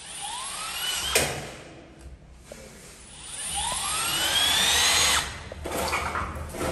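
Electric drill run in two bursts, its motor whine climbing in pitch each time and then cutting off: a short burst ending in a sharp click about a second in, then a longer, louder one from about three and a half to five seconds in.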